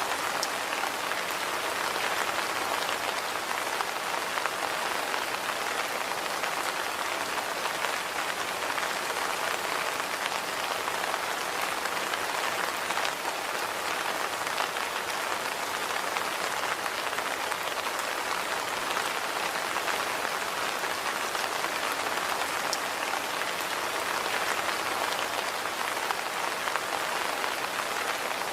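Steady rain falling on a hard surface, an even hiss with many small drop ticks through it.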